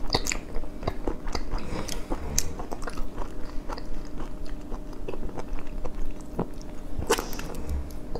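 Close-miked chewing and crunching of whole sauce-soaked large shrimp eaten with the shell on, a steady run of sharp little crunches and clicks with a denser burst near the end.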